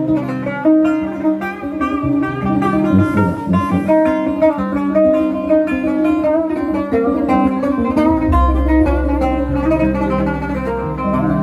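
Gambus ensemble playing an instrumental passage: a fast plucked melody on the oud (gambus) over electronic keyboard, with a low sustained bass note coming in about eight seconds in.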